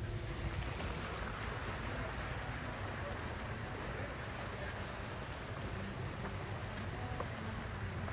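Car tyres swishing steadily through shallow floodwater on a flooded street, with the car's low engine rumble underneath.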